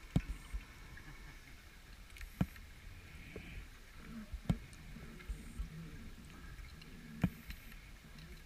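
Underwater sound on a rebreather dive: a low hum with four sharp clicks a few seconds apart, from the divers' equipment.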